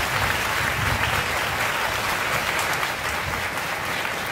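Audience applauding, a dense and steady clapping that eases slightly near the end.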